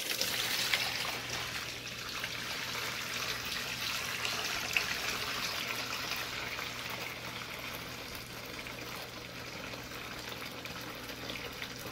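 Dirty wash water draining out of a Densor portable single-tub washer through its drain tube, a steady trickle and splash of water that slowly eases off. This is the drain at the end of the wash cycle.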